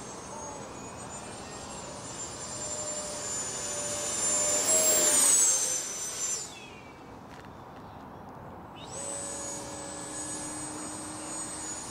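Freewing L-39 RC jet's electric ducted fan whining as it flies past, growing louder to a peak about five seconds in with its pitch dropping as it passes. The whine cuts out abruptly for a couple of seconds, then comes back steadily near the end.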